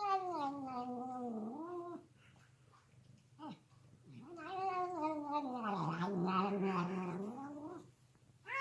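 Domestic cat yowling in long, drawn-out calls: one falling in pitch over the first two seconds, a brief sound a little later, then a longer yowl that sinks low in the middle and climbs back up before stopping near the end.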